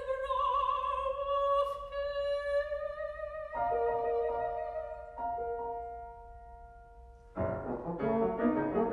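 Classical chamber music: a soprano holds a long note with vibrato over the piano, then two soft piano chords ring and fade, and about seven seconds in the horn and piano come in together with quick, busy notes.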